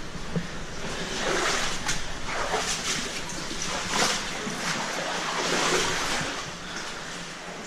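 Water rushing and splashing in a cave stream, swelling and falling several times as someone moves through it, with a few short knocks.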